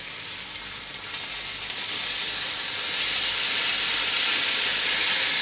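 Hot sauce with tofu, squid and vegetables sizzling as it is poured from a wok into a pre-heated clay pot. The pot is hot enough that the sauce boils on contact. The sizzle grows louder about a second in as more of the food goes in, then holds steady.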